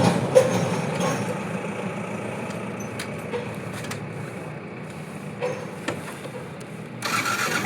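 Motorbike engine idling steadily, then getting louder about seven seconds in as it is revved to pull away.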